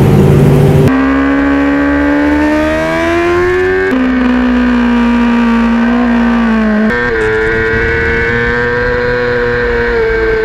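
Racing motorcycle's engine heard from on board at speed: its note climbs, drops sharply at a gear change about four seconds in, jumps up about seven seconds in, holds, and drops again at another gear change near the end. The first second is a louder rushing noise with engine tones underneath.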